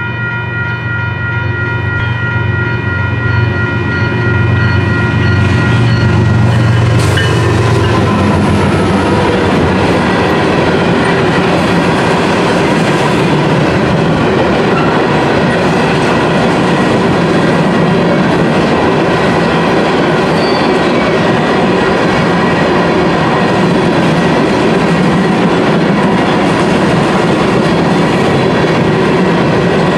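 Union Pacific freight train passing a grade crossing: the locomotive's diesel engine drones as it approaches and goes by about seven seconds in, then the covered hopper cars roll past with a steady clatter of wheels on the rails. A crossing bell rings with rapid repeated strokes throughout.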